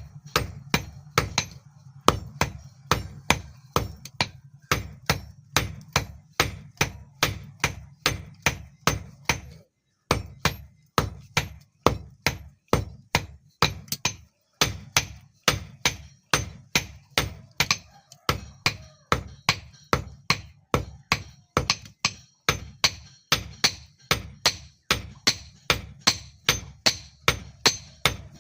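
Hammer blows forging the hot steel of a hex nut on an anvil, struck in a steady rhythm of about three a second, with two short pauses.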